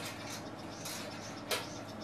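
Steady room noise with a faint hum, short high hissing patches, and one sharp click about one and a half seconds in.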